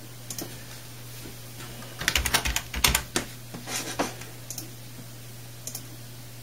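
Typing on a computer keyboard: a quick run of keystrokes about two seconds in, then a few scattered key presses, over a low steady hum.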